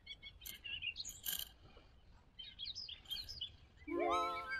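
Small birds chirping and twittering. Near the end, background music comes in with a run of held notes stepping upward.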